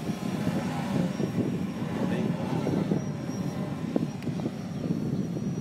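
Many motorcycle engines running together as a large group of riders moves off, an uneven low rumble, with some voices mixed in.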